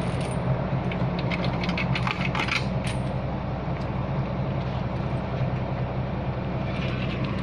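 A heavy machine's engine running steadily at a low, even pitch, with a quick run of metallic clinks about one to three seconds in.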